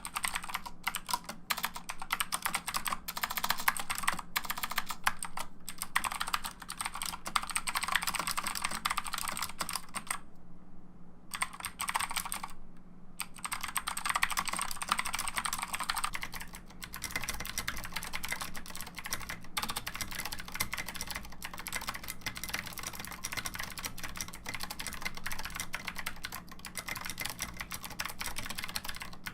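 Continuous typing on a computer keyboard, a dense run of key clicks with two short pauses about ten and thirteen seconds in. The character of the keystrokes changes about sixteen seconds in.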